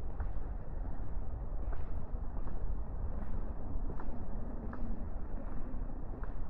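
Footsteps walking at a steady pace on a wet path, one step about every three-quarters of a second, over a steady low background rumble.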